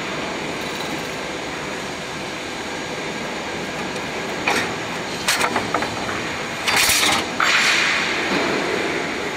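Steady workshop machinery noise, with a few light metallic clinks of steel blade pieces being handled about halfway through. A louder rushing noise comes in two bursts around seven to eight seconds in.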